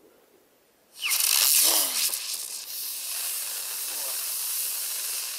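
A 14 mm titanium firework helicopter's motor catches with a sudden loud hiss about a second in, then burns with a steady hiss as it throws out sparks.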